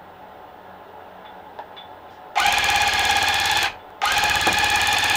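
Electric cut-pile rug tufting gun running in two bursts of about a second each, a fast steady buzzing chatter as it punches yarn through monk's cloth. There is a short pause between the bursts.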